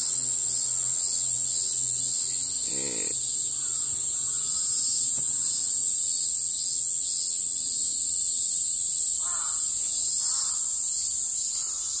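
Cicadas singing in a steady, high-pitched drone, with a fainter pulsing about twice a second woven through it.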